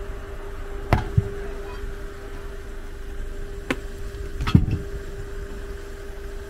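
A few sharp knocks and thuds as a truck tyre and the fitter's tools are handled while the tyre is worked onto its wheel rim by hand. The loudest, deepest thud comes about four and a half seconds in, over a steady mechanical hum.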